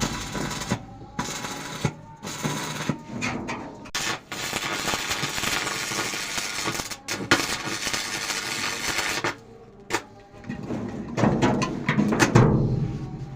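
Electric arc welding crackling in long stretches, broken by sharp clicks and metallic knocks, with a louder ringing clatter near the end.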